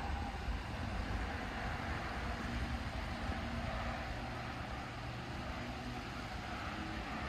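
Steady outdoor rumble and hiss with no distinct events. It is strongest in the low end and eases slightly after about five seconds.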